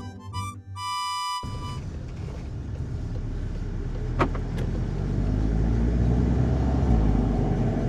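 A few notes of background music for about the first second and a half, then a cut to a Volkswagen Golf GTI mk7.5 on the move: its turbocharged four-cylinder engine and tyre rumble run steadily and slowly grow louder. One brief sharp click sounds about four seconds in.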